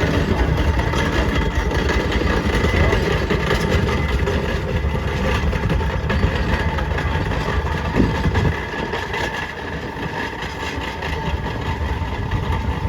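Engines running steadily at a loud, even level, with heavy low rumble underneath.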